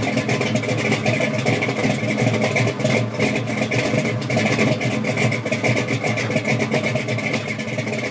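A car engine running steadily, its level rising and falling a little.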